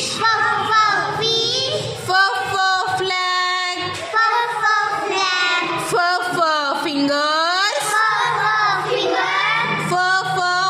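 A child's voice singing a phonics song, the pitch swooping up and down in long glides.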